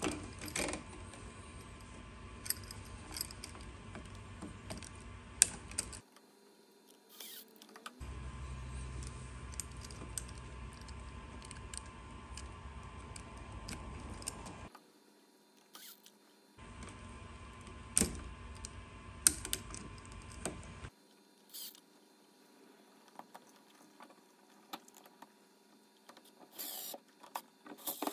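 Small clicks, taps and rustles of hands working copper wires onto the screw terminals of a stacked light switch, some clicks sharp and scattered, over a faint low hum that comes and goes.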